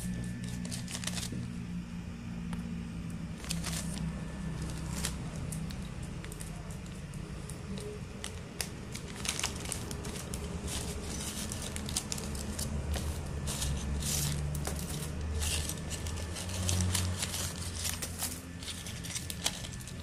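Plastic bag crinkling, with scattered small clicks and rustles as a set of metal lock picks is handled and drawn from its leather pouch.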